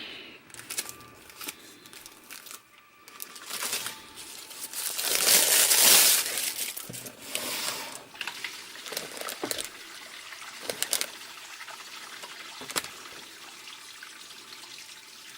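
Packaging being handled and unwrapped: rustling and crinkling of paper or plastic with scattered small clicks, loudest for a few seconds about four seconds in.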